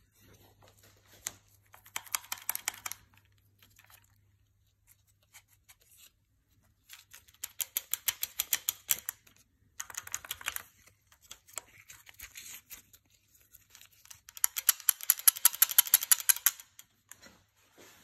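Rapid metallic clicking and rattling from the old timing chain of a 1.3 HDI diesel engine being shaken by hand against its guides. It comes in four bursts of one to two seconds each, with near quiet between them.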